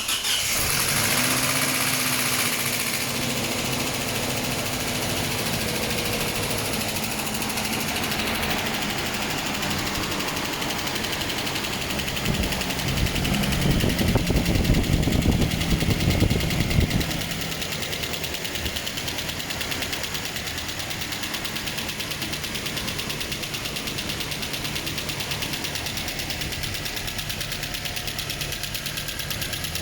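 Freshly rebuilt Toyota 2TR-FE 2.7-litre four-cylinder petrol engine running just after its first start, during its run-in. Its idle speed eases down over the first several seconds. About twelve seconds in it runs louder and rougher for about five seconds, then settles into a steady idle.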